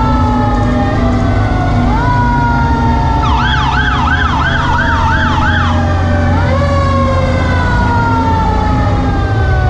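Fire truck sirens wailing: each wail rises quickly and then falls slowly over a couple of seconds, with a fast yelp of about three cycles a second for two seconds in the middle. A truck engine runs steadily and low underneath.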